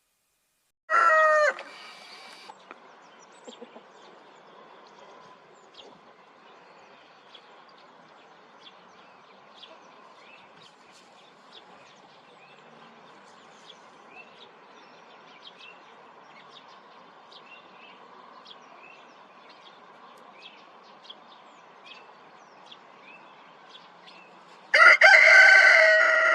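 Rooster crowing: a brief loud snatch of a crow about a second in, then a long full crow near the end whose last note falls in pitch. Between them, faint small chirps and clucks from the flock.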